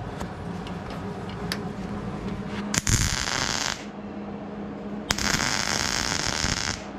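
Welding arc crackling on the sheet-metal roof seam in two bursts, the first about a second long and the second nearly two seconds, with a few sharp clicks between them.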